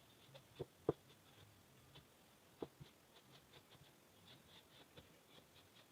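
Faint scratching of tailor's chalk drawing lines on scuba fabric, with a few soft knocks, the loudest about a second in.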